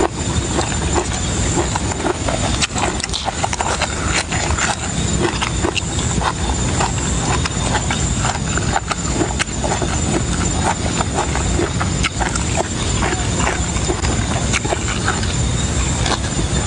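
Close-miked chewing and lip-smacking as a man eats pieces of raw beef tripe: a dense, uneven run of mouth clicks and smacks.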